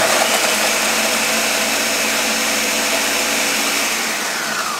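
Ninja blender running at full speed, its blades grinding Oreo cookies into crumbs. It starts abruptly and is switched off about four seconds in, its pitch falling as the motor spins down.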